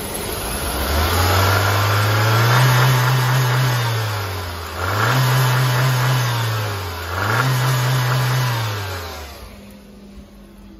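VW 1.4-litre 16-valve turbocharged petrol four-cylinder (engine code BMY) revved three times with no load: the engine note climbs, holds briefly and falls back each time, the first rev the longest, then it drops to a quieter idle near the end.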